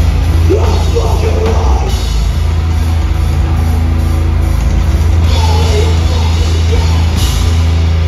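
Heavy band playing live and loud: distorted guitars and bass with a pounding drum kit and crashing cymbals, heard from on stage behind the drums. Vocals come in about half a second in and again about five seconds in.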